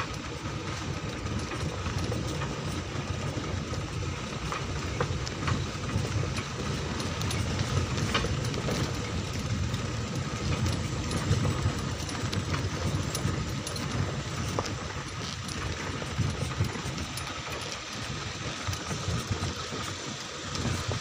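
Vehicle engine running steadily while driving along a rough dirt track, with scattered short rattles and knocks from the bumps.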